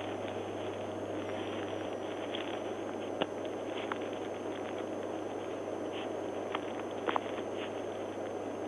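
Steady hiss with a faint low hum and a few faint, short clicks scattered through.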